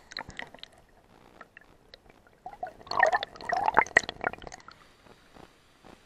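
Water sloshing and gurgling around a camera held underwater in a shallow stream pool, with a louder stretch of irregular splashing and gurgling in the middle.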